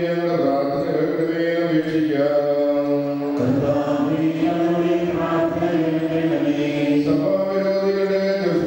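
Singing voices in a slow devotional chant, long held notes shifting pitch every second or two.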